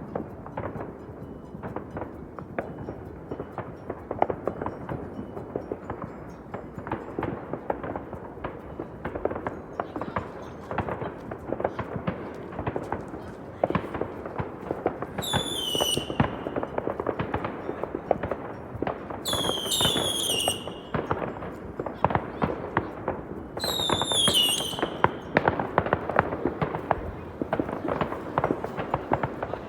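New Year's fireworks and firecrackers going off all around in a dense, continuous crackle of bangs and pops. Three whistling fireworks with falling pitch sound about halfway through, a few seconds apart.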